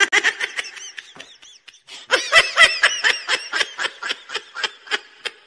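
Laughter in a rapid run of short, high-pitched bursts, with a brief pause about two seconds in.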